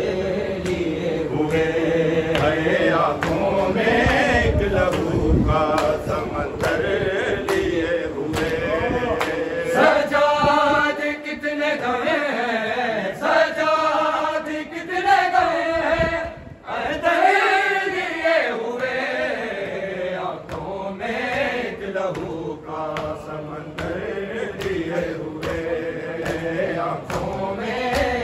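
Group of men chanting an Urdu noha (mourning elegy) together, unaccompanied, led by a few reciters. Regular slaps of hands on bare chests (matam) keep the beat beneath the voices.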